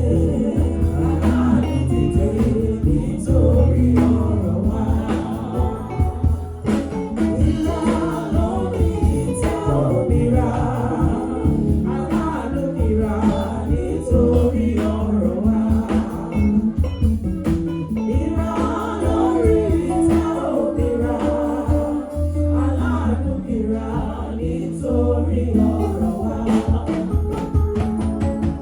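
Gospel praise song sung by a group of voices over instrumental backing, with a steady bass line and percussion.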